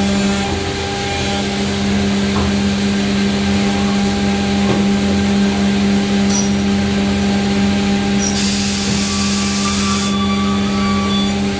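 Dassa Makina edge banding machine running with a steady motor hum. About eight seconds in, a loud hiss starts and lasts about two seconds.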